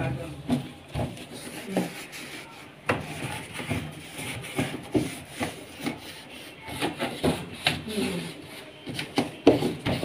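Cloth rubbing and wiping over the plastic top and lid of a top-loading washing machine, with scattered light knocks and taps.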